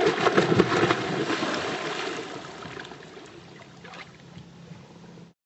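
Water splashing and sloshing at the side of a boat: loud at first, then dying down over a few seconds, with a faint low steady hum underneath.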